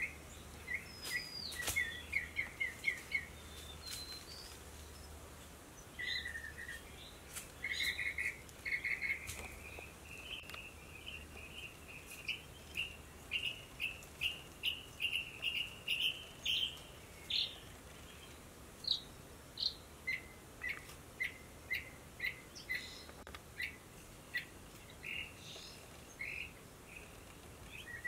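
Small forest birds chirping, a long run of short, quick notes repeated two or three times a second, with several calls overlapping.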